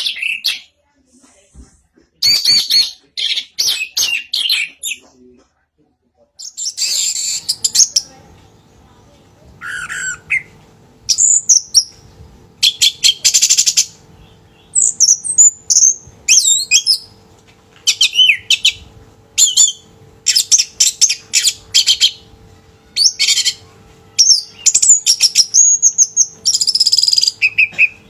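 Orange-headed thrush singing in short, varied phrases of high whistled and chattering notes, with brief gaps between them and a longer pause about five seconds in.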